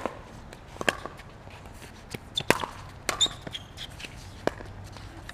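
Pickleball paddles and a plastic ball in a rally: a series of sharp pops of paddle hits and bounces, about five strong ones at irregular intervals, with a few short high squeaks about three seconds in.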